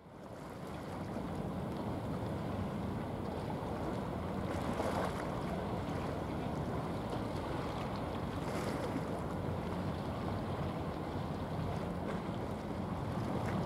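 Steady wind and sea noise, fading in over the first second, with two brief gusts about five and nine seconds in.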